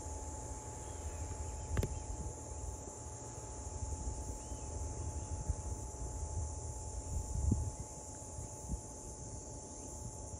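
Insects chirring steadily in the grass, a continuous high-pitched hiss-like drone, over a low uneven rumble. A sharp click comes about two seconds in and a low bump a little past the middle.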